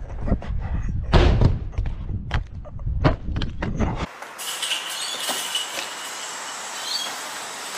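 Running footsteps slapping on concrete and wall tops, with wind rumbling on a body-worn camera during a first-person parkour run. About four seconds in, the sound cuts abruptly to a steady outdoor hiss with a few light taps.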